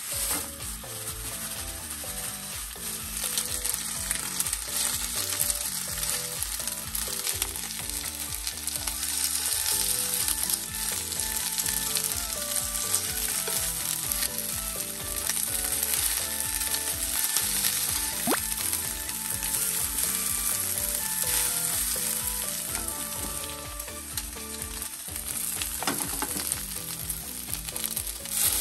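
Chicken thigh pieces and sliced onion sizzling steadily in oil in a frying pan as they are turned with chopsticks. Near the end the sizzle briefly gets louder as sake is poured into the hot pan.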